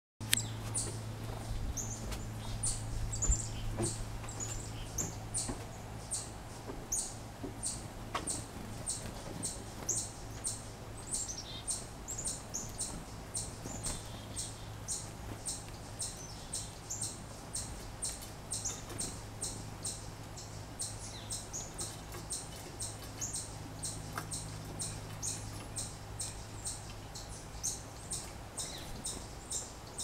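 Small bird calling over and over: a short, very high chirp repeated about twice a second, with a steady low hum underneath.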